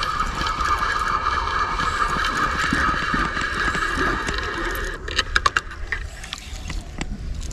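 Fishing reel whirring steadily with a high whine while a hooked fish is fought. The whine fades about five seconds in, followed by a few sharp clicks and knocks.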